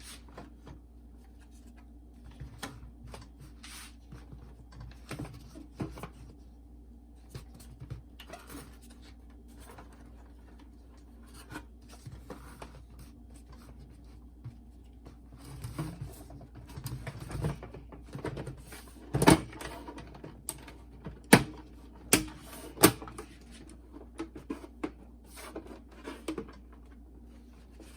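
Clicks, taps and scraping of plastic parts being handled and fitted together while a boombox is reassembled, with a few sharper clicks about two-thirds of the way in, over a steady low hum.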